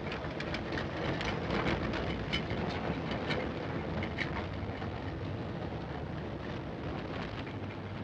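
Tram running along street rails, heard on an old black-and-white film soundtrack: a steady rumble and rattle with scattered sharp clicks, most of them in the first half.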